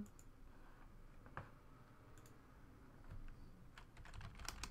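Faint computer mouse clicks, then a quick run of keyboard key clicks as typing starts near the end.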